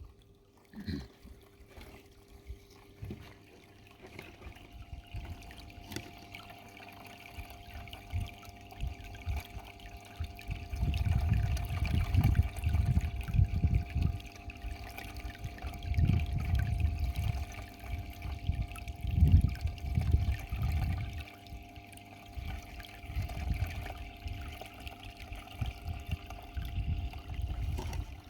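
Water running and trickling through a small tool-box sluice box as dirt is washed through it, over a steady faint hum. From about ten seconds in, irregular low rumbles come and go.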